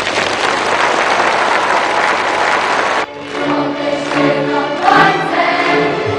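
A large crowd applauding, cut off abruptly about three seconds in by a choir singing.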